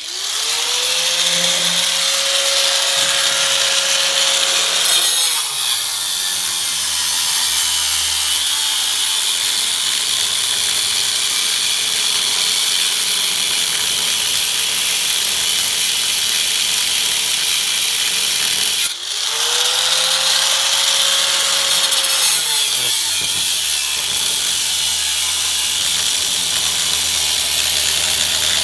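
Power grinder working on car body metal: its motor spins up with a rising whine, runs steady for a few seconds and winds down, twice, once at the start and again about 19 seconds in. Continuous harsh grinding noise runs underneath.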